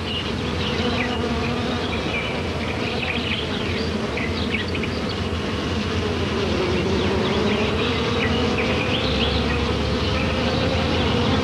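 Flying insect wings buzzing in a steady hum whose pitch dips and recovers around the middle. Short high chirps sound faintly behind it.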